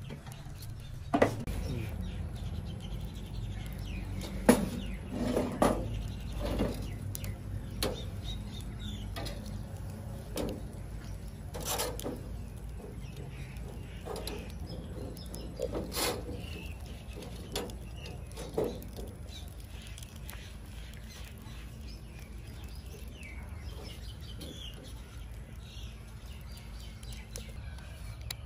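A metal spoon clinking and scraping against a stainless steel bowl as shredded salad is tossed, in irregular taps that are loudest and most frequent in the first two-thirds.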